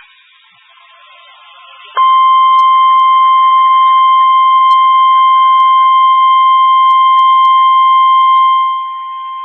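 NOAA Weather Radio 1050 Hz warning alarm tone: after a brief hissy pause, one steady, loud, high-pitched beep with faint overtones starts about two seconds in and holds. It drops noticeably in level near the end.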